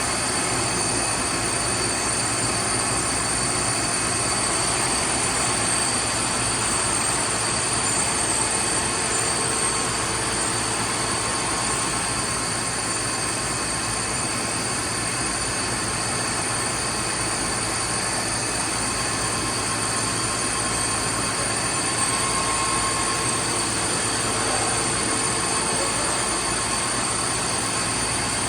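StankoImport CNC horizontal boring mill with a 90 mm spindle running, giving a steady mechanical hum with a constant high-pitched whine over it.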